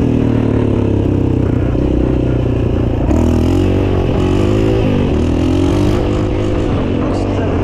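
Yamaha Raptor 700 quad's single-cylinder four-stroke engine running under way, its pitch rising and falling as the throttle is worked, with several quick climbs and dips between about three and six seconds in.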